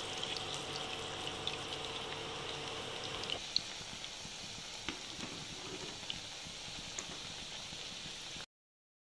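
Malpua batter frying in a pan of hot oil: a steady sizzling hiss with scattered small pops and crackles. The sound stops abruptly near the end.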